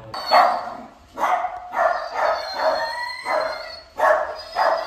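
Golden retriever barking repeatedly, about eight loud barks roughly half a second apart, some drawn out with a sliding pitch. It is excited alert barking at someone arriving at the house.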